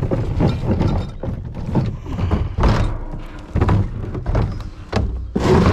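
Plastic wheelie bin being wheeled and bumped back into its metal cage enclosure: a run of irregular thunks and knocks, the loudest near the end.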